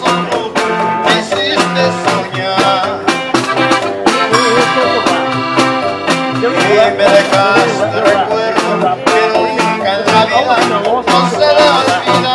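Live norteño band playing: an accordion carries the melody over acoustic guitar, upright bass and a small drum kit keeping a steady beat.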